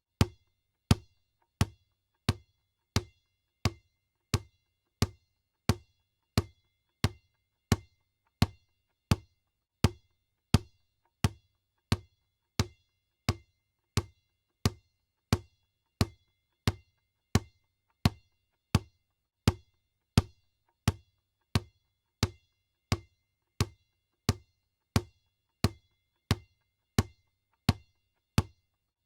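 Basketball bouncing on the floor in a steady, even dribble, about three bounces every two seconds. Each bounce is a sharp thump with a short, faint ring.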